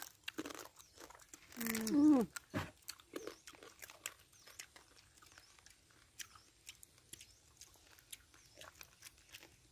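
Eating cooked rice-field crab: many small cracks and crunches of shell being broken by hand and bitten, with chewing. About two seconds in, a short voice sound falls in pitch, the loudest moment.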